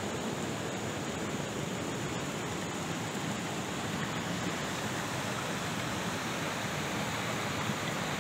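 A shallow river running over rocks and boulders: a steady, even rush of water.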